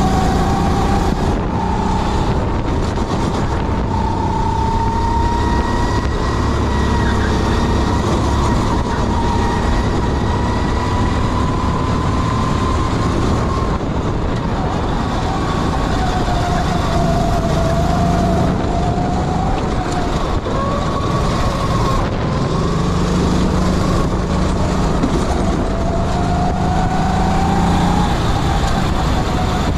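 Sodikart kart engine running hard on track, its pitch climbing slowly along the straights and dropping back several times into the corners, over a steady rush of noise.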